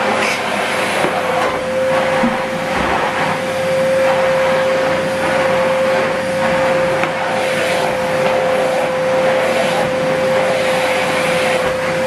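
Hoover Whirlwind bagless cylinder vacuum cleaner running with a steady whine over a rush of air, its floor nozzle pushed back and forth over carpet.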